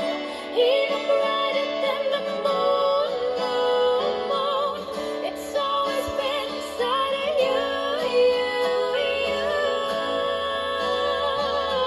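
Music: a song passage with long held, wavering melody notes.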